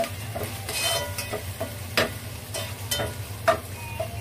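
Minced pork frying in a pan on a gas stove, sizzling over a steady low hum. A spatula scrapes and knocks against the pan about seven times as the food is stirred. The sharpest knock comes near the end.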